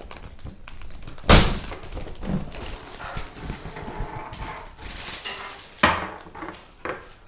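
Plastic wrapping crinkling and rustling as a keyboard is pulled out of its bag, with a sharp knock about a second in and another near the end.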